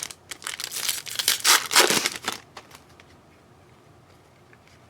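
Foil trading-card pack being torn open and crinkled for about two seconds, then a few faint clicks.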